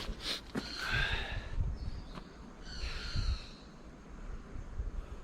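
A bird calling twice, about two seconds apart, each a short call with several pitches at once. A few sharp clicks of footsteps on stones come in between.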